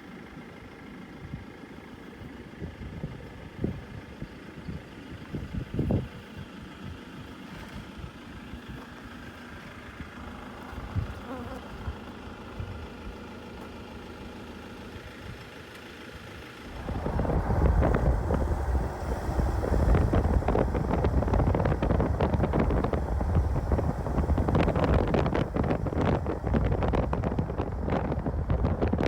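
A vehicle engine running steadily with a few light knocks. About two-thirds of the way in, loud wind buffeting on the microphone suddenly takes over.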